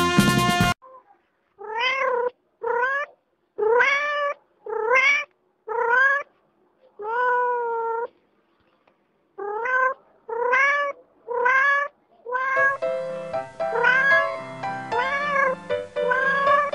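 A cat meowing over and over, short upward-bending meows about once a second, with one longer meow near the middle. Music cuts off just after the start and comes back for the last few seconds, playing under the later meows.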